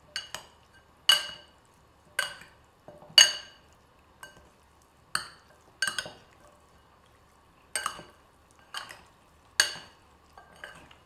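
A metal spoon clinking against a glass mixing bowl while raw chicken wings in spices and olive oil are stirred, about one short ringing clink a second.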